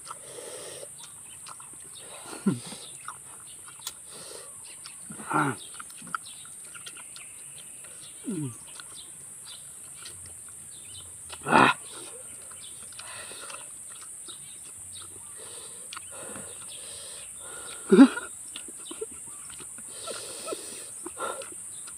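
Short wordless grunts from people eating very spicy instant noodles by hand, about five over the stretch, each brief and several falling in pitch, with faint mouth and eating sounds between them.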